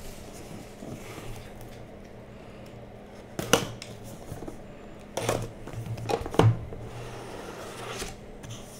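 Cardboard trading-card hobby box being handled: a few short knocks and rubs as it is turned over, its seal slit and its lid lifted off. One sharp knock comes about three and a half seconds in, and a cluster of them follows a couple of seconds later.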